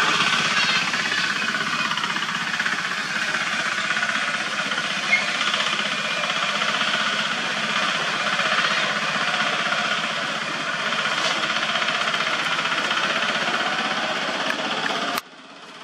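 Steady buzzing drone with a fast pulse, the sound of a cicada chorus, with one short click about five seconds in; the drone cuts off abruptly near the end.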